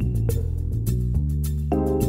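Soft instrumental background music with a steady beat.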